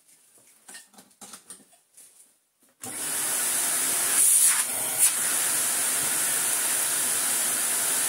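Electrolux Dolphin vacuum cleaner switched on nearly three seconds in and then running steadily, a rushing air noise with a high whine, briefly surging twice soon after it starts. Before it starts, faint handling clicks and rustles.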